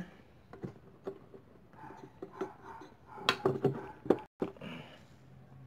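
Metal engine parts clicking and knocking as a balancer shaft is pushed and worked into an aluminium motorcycle crankcase, with the shaft not wanting to seat. The sharpest knocks come in a cluster about three to four seconds in.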